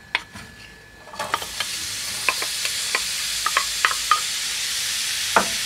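Diced onion hitting hot olive oil in a stainless steel pan: after a click, a sizzle starts about a second in and holds steady, with scattered pops and crackles.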